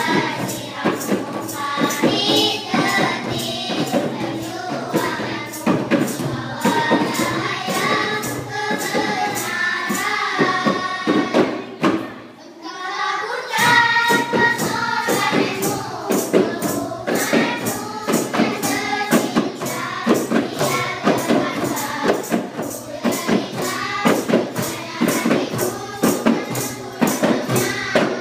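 A group of schoolgirls singing a nasyid in chorus over a steady hand-percussion beat of about two strokes a second. The music briefly drops away about halfway through, then comes back in.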